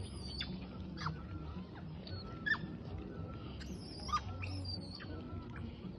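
Scattered short, high animal chirps and squeaks, some dropping quickly in pitch, two sharper ones about halfway through, over a steady low hum.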